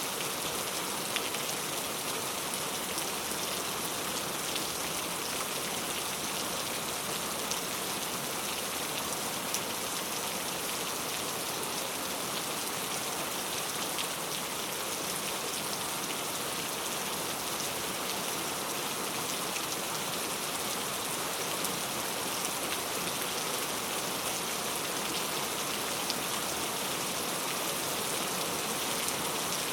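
Heavy rain falling steadily, a dense even hiss with scattered ticks of single drops striking close by.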